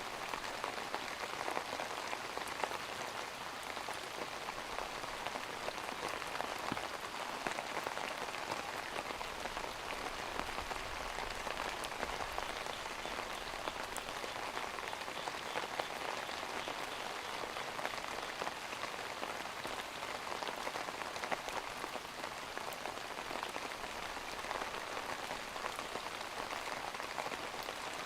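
Steady rain falling: a dense, even hiss of drops with fine individual ticks.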